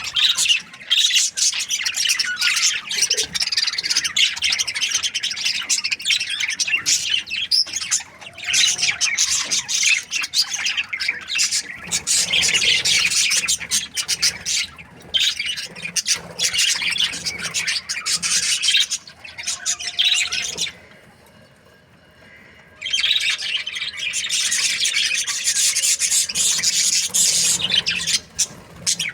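Budgerigar chirping and chattering in a rapid, continuous warble of high chirps and squawky notes, pausing for about two seconds about three-quarters of the way through.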